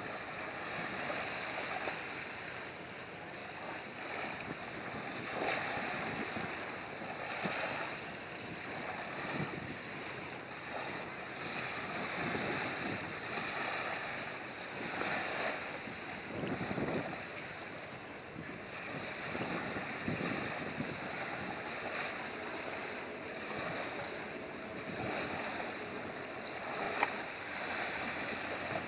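Wind gusting over the microphone together with water washing at the shore, an even rush of noise that rises and falls unevenly.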